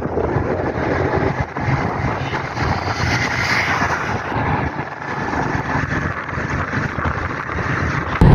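Road and wind noise of a moving vehicle at speed, a dense rumble that rises and falls unevenly.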